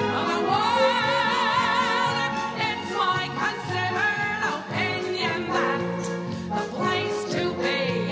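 A showtune sung over an orchestral backing track with a steady beat; about a second in the voice holds a long note with a wide vibrato, then goes on into shorter sung phrases.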